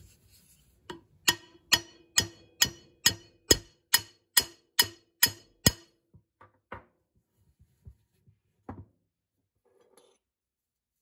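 Ball-peen hammer striking the rusty steel jaw of an old Ridgid pipe wrench: about a dozen ringing metal blows at roughly two a second, then a few lighter taps and a faint clink near the end.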